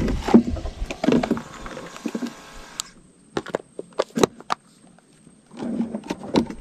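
Fishing gear being handled in a wooden boat: a green plastic line spool worked against a plastic bucket. Rustling at first, then from about three seconds in a run of sharp separate clicks and knocks.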